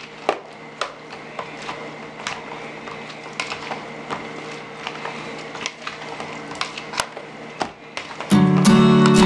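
A spoon stirring shrimp ceviche in a plastic bowl, with irregular clicks and taps as it knocks the bowl's side. About eight seconds in, loud strummed acoustic guitar music starts.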